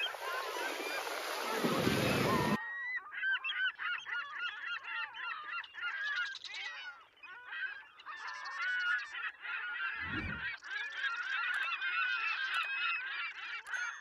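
A loud rushing noise for about the first two and a half seconds, then a flock of birds calling over one another: many short, rising and falling calls overlapping without a break.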